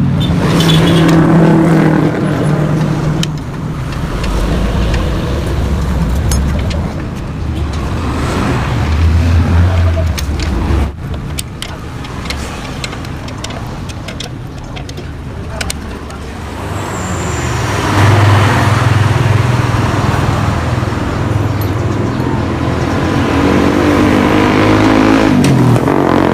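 Yamaha RX-King's single-cylinder two-stroke engine running through an exhaust whose baffles have been drilled out for a crisp, growling note, the throttle worked so the revs rise and fall. It drops back sharply about eleven seconds in and picks up again a few seconds later.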